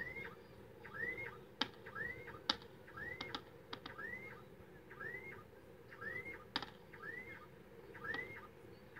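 Distant fireworks popping in scattered sharp cracks. Under them runs a short whistled chirp that rises and falls and repeats evenly, slightly faster than once a second.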